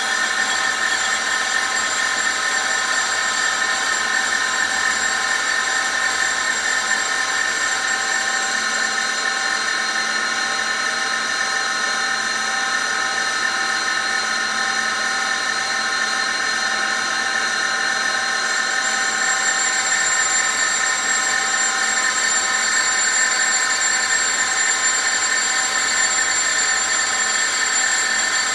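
Precision grinding wheel running steadily against a metal workpiece, giving a constant whine made of several steady tones. A faint rapid high ticking drops out from about ten seconds in until about eighteen seconds.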